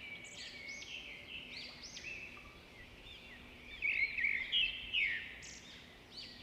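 Several small birds chirping and twittering: rapid, overlapping high chirps and trills, busier around four to five seconds in, over a faint steady hum.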